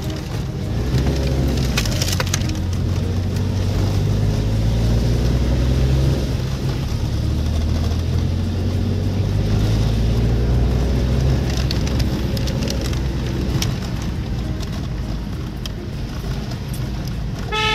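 Car engine and road rumble heard from inside the cabin while driving slowly along a narrow, rough lane; the engine note rises and falls with speed. A short car horn toot sounds right at the end.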